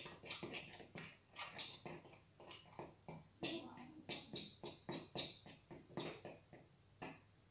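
A utensil stirring dry flour, sugar and yeast in a glass bowl: quick, soft scratching strokes, several a second.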